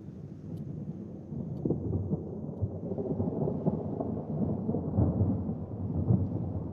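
Thunder: a long rolling rumble that swells about a second and a half in and keeps rolling unevenly, with heavier rolls near the end.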